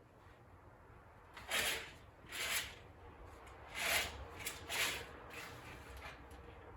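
Five short noisy swishes or scuffs spread over about three and a half seconds, as of things being handled or moved.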